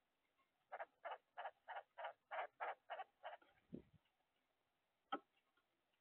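Red-bellied woodpecker at the feeder making a rapid run of about nine evenly spaced harsh notes, some three a second, then a dull thump. Near the end comes a single sharp knock on the feeder.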